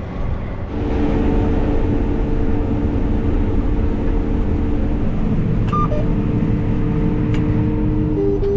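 Cotton stripper running steadily, a loud machine drone with a steady two-note hum over it. The sound gets louder about a second in, and the hum drops slightly in pitch near the end.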